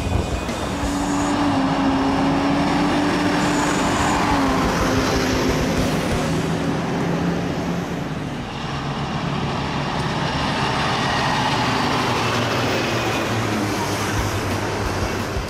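Two heavy trucks driving past in turn: first a Hino tipper truck with a steady engine note that drops in pitch about four seconds in, then, after a brief dip, a loaded log truck approaching and passing with engine and tyre noise.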